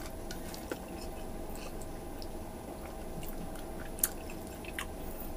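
Close-up chewing and wet, sticky mouth sounds of a person eating sticky, sinewy beef stew with rice. There are small smacking clicks throughout and one sharper click about four seconds in.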